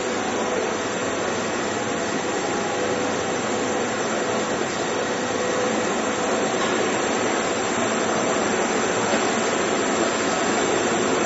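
Verkon PAB-350 vertical two-spindle machine running with a steady, even whirring noise.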